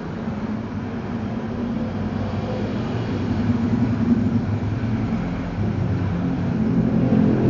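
A motor engine running steadily with a low hum, slowly growing louder.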